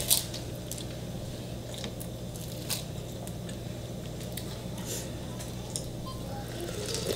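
Wet eating sounds: broth sipped from a metal spoon and chewing, with scattered small clicks and smacks. The sharpest click comes right at the start.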